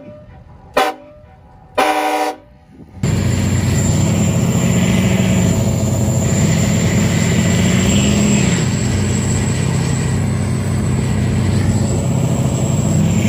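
A vehicle horn honks a few short times, then about three seconds in pickup truck engines start running hard at high revs under load, the pitch wavering as they pull against each other.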